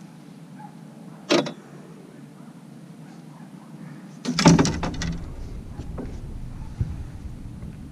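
A sharp knock about a second in, then a louder burst of clattering knocks and thumps about four seconds in, over a steady low hum. This sounds like gear and the hull of a fishing boat being knocked while a fish is landed and handled.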